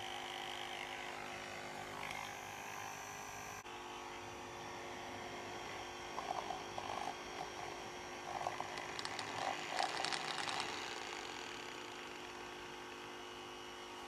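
Homemade centrifugal fan driven by a high-RPM 12-volt motor, running at full speed with a steady, noisy whine made of many tones. From about six to eleven seconds in, uneven flutters and clicks sound over the whine.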